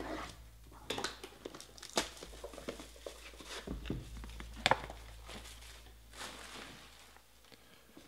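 Plastic shrink-wrap crinkling and tearing as it is pulled off a trading-card box, with scattered clicks and taps of the cardboard box and lid being handled; one sharper tap comes about four and a half seconds in.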